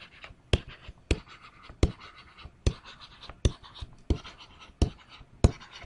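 Stylus writing on a tablet: the tip taps down sharply about eight times, roughly every two-thirds of a second, with soft scratching of the pen strokes in between.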